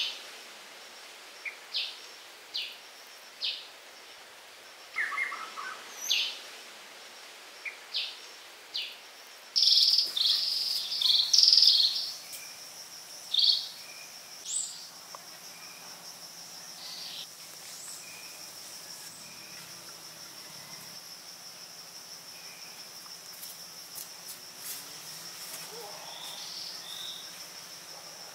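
Outdoor ambience of birds and insects: short bird chirps every second or so, then about ten seconds in a steady high-pitched insect drone, of crickets or cicadas, sets in and runs on under a burst of louder bird calls and a few later chirps.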